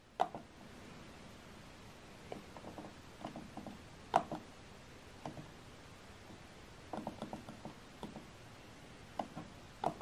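Faint clicks of fingers pressing the arrow and OK buttons on an Epson WorkForce Pro WF-M4119 printer's control panel, scattered presses every second or so, the sharpest about four seconds in and a quick run of them around seven seconds.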